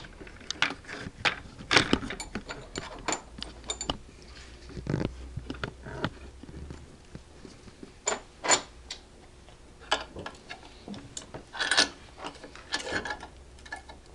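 Irregular clicks, knocks and metal clinks as a plastic upper-receiver clamshell is set between the jaws of a steel bench vise and the vise handle is turned to clamp it.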